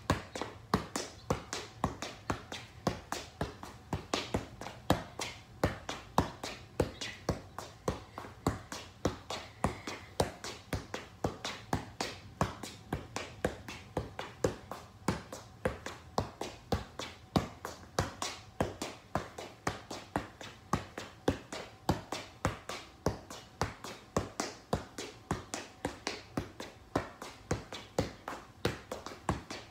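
A football being juggled on the feet: a steady run of short kicks, about two touches a second, without a break.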